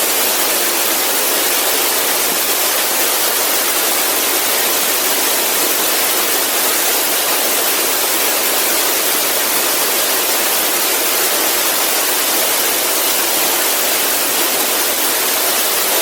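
Waterfall: falling water making a loud, steady, even rush.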